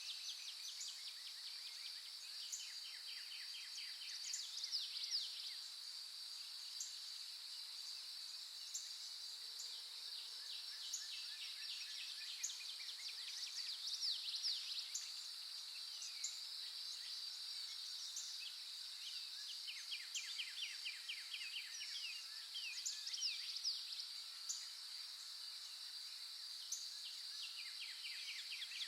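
Several songbirds chirping and singing rapid trills, repeated every few seconds, over a continuous high-pitched insect drone.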